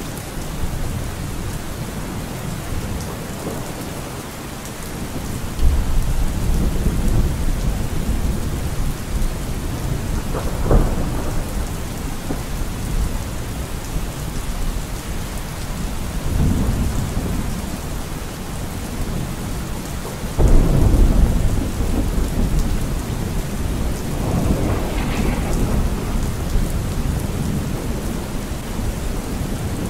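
Steady rain with low rolls of thunder, the heaviest rumbles starting about six seconds in and again about twenty seconds in.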